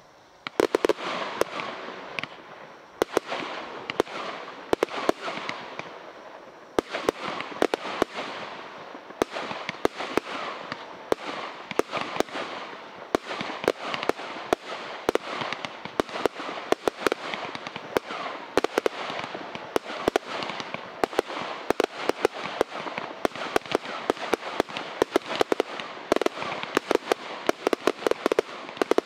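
Three Brothers Pyrotechnics Hercules Limited Edition firework barrages firing together: a dense, continuous volley of shots and loud bursting reports. It thins briefly about six seconds in, then picks up again.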